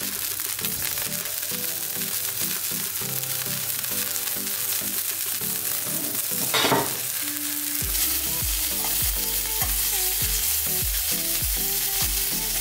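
King prawns sizzling as they fry in hot oil in a stainless-steel pan: a steady spitting hiss.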